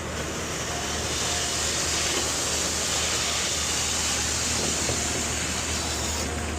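Concrete mixer truck running during a pour: a steady engine drone under an even rushing hiss that builds about a second in and eases off near the end.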